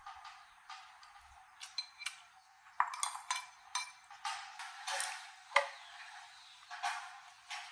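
Irregular light clicks, taps and clinks of small hard objects being handled, about a dozen, unevenly spaced.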